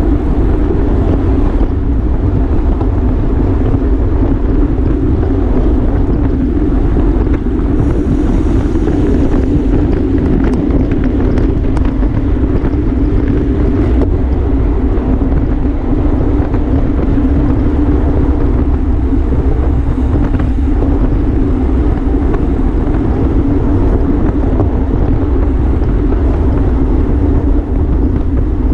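Wind rushing over the microphone of a racing cyclist's camera at speed: a loud, steady low rumble with no letup.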